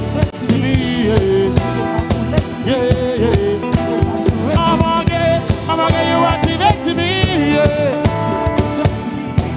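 Live music with a steady beat and a man singing over it, his voice gliding up and down in long melodic lines.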